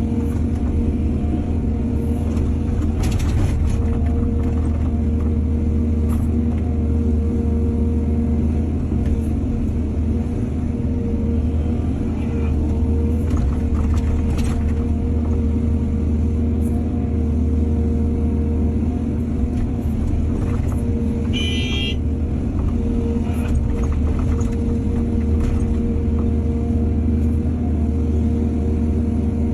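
Excavator's diesel engine running steadily under work, with a few clanks, loudest about three seconds in and again near the middle, and a brief high squeal about two-thirds of the way through.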